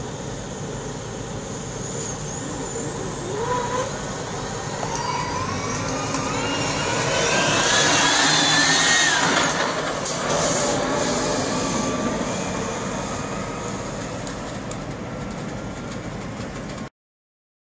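Battery-electric semi tractor pulling away and driving past: the electric drive whine rises steadily in pitch as it accelerates, over tyre and road noise that swells as the truck passes close and then fades as it drives off. The sound cuts off suddenly near the end.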